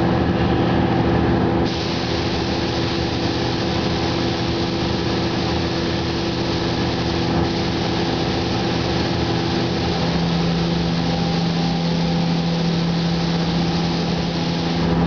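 Steady hum of spray-booth machinery under a constant hiss of air. The hum's tone drops to a lower pitch about ten seconds in.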